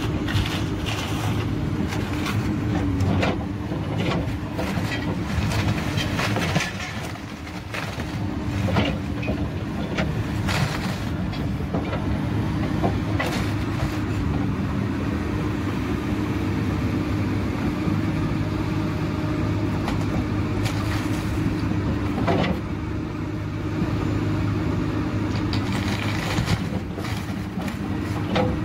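A Komatsu tracked excavator's diesel engine runs steadily while its bucket breaks up a wrecked wooden boat hull of marine ply and hardwood, with repeated cracks and crunches of splintering timber throughout.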